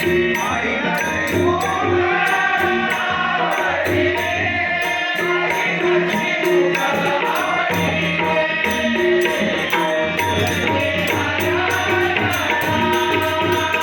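Marathi devotional abhang sung with swooping, ornamented melody lines, accompanied by tabla and pakhawaj drums. A steady, bright metallic beat keeps time throughout.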